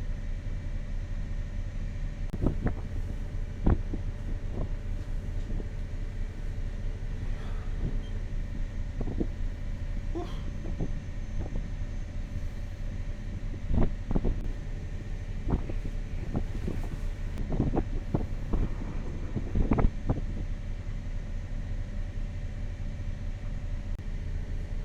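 Motor yacht's inboard engine running steadily under way, a low hum with a held tone above it, with a few short knocks and clicks scattered through.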